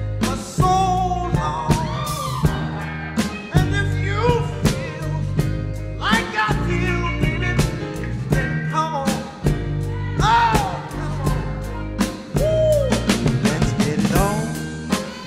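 Dance track playing: a song with a sung vocal over a deep, steady bass line and sharp drum hits.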